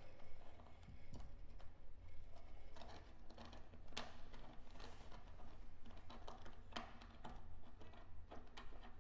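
Violins lying on a table being handled with the fingers at the strings and pegbox: sparse, quiet clicks and scratches, the sharpest about four seconds in and another near seven seconds.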